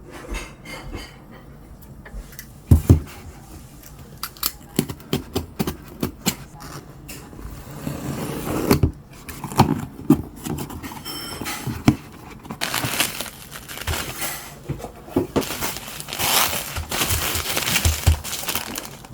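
Merchandise packaging being handled and torn open: crinkling and tearing with scattered clicks and taps, and one sharp knock about three seconds in. The crinkling becomes dense and continuous in the second half.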